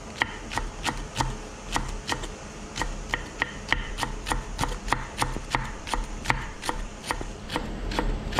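Chef's knife finely julienning green onion on a wooden chopping board: a steady, even run of knife knocks on the board, about three a second.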